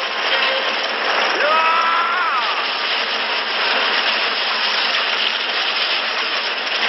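Film sound effects of a cannon blast and explosion: a dense, continuous crashing roar of shattering debris, with a brief wavering pitched sound about a second and a half in.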